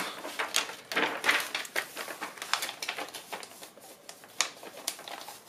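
Paper rustling as the pages of a printed instruction booklet are flipped and a loose sheet is handled: a run of short, crisp rustles, busiest in the first couple of seconds and then thinning out.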